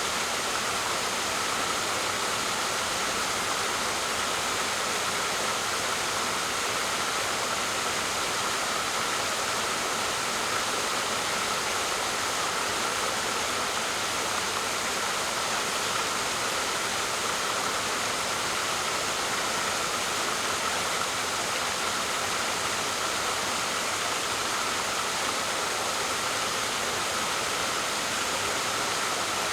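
Waterfall: steady rushing and splashing of falling water, even and unchanging.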